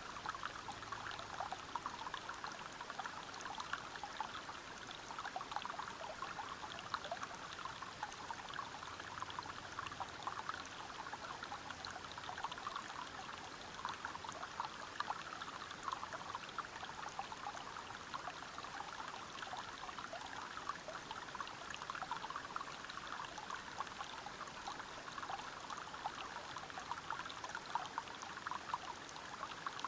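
River water flowing and splashing over rocks: a steady rush dense with many small splashes.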